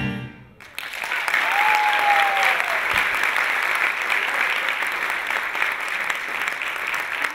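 Salsa music ends, and after a brief pause an audience applauds steadily. A single drawn-out falling tone rises out of the crowd about a second and a half in.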